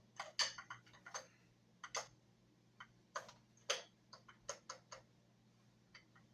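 Irregular light clicks and metallic knocks from a Rossi break-action 20-gauge/.22 gun being opened with its break lever and its barrel worked loose from the frame.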